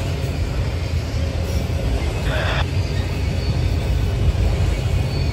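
Freight train of autorack cars rolling past close by: the steady low rumble of wheels on rail, with a brief higher hiss a little over two seconds in.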